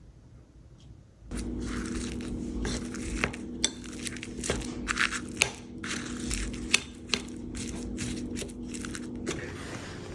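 Kitchen dishes and utensils scraping and clicking over a steady electric appliance hum. The hum starts about a second in and stops near the end.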